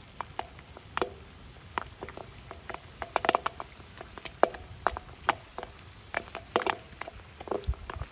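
Popcorn kernels heating in oil in a cast-iron kazan, crackling with irregular sharp pops, a few each second.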